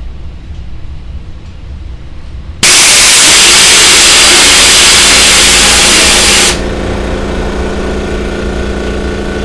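A loud hiss of compressed air let out from a Makita MAC2400 Big Bore air compressor's line, starting suddenly a couple of seconds in and cutting off after about four seconds. Under and after it, the compressor's pump runs with a steady hum.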